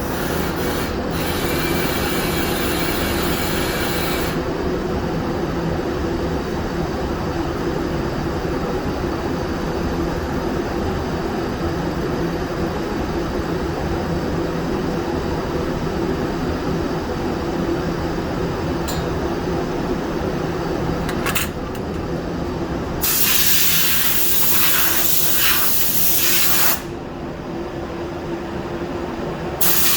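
Powder coating gun spraying: bursts of air hiss for about four seconds at the start, again for about four seconds in the last third, and once more right at the end, over a steady machine drone.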